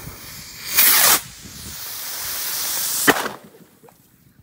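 Small firework rocket strapped to a foam toy plane launching: a loud whoosh about a second in, then a hiss that grows louder as it burns in flight, ending in a sharp pop about three seconds in.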